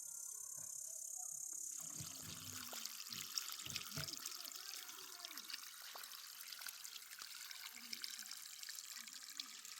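Water running and trickling, coming in about two seconds in with a steady hiss and low gurgles.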